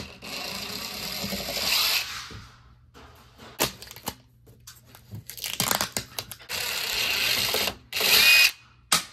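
DeWalt 20V cordless drill running in several short bursts, driving screws into a bathroom exhaust fan housing and its sheet-metal duct, with clicks and knocks between the bursts. The loudest burst comes near the end.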